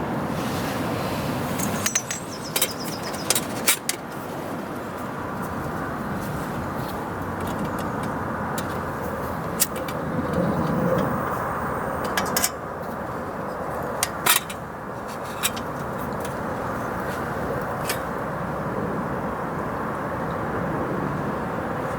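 Steady storm wind rushing and rumbling, swelling and easing, with scattered sharp clicks and light knocks, a few close together about two to four seconds in and more in the middle.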